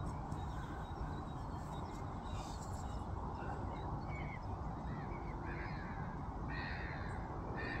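Open-air ambience: a steady low rumble with a series of short bird calls, most of them from about two seconds in onward.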